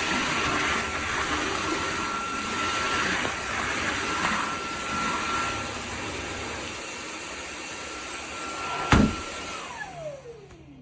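Dreame G10 Combo cordless wet-dry vacuum running with a steady whine and rushing air. About nine seconds in it is switched off with a sharp click, and the motor whine falls in pitch as it spins down.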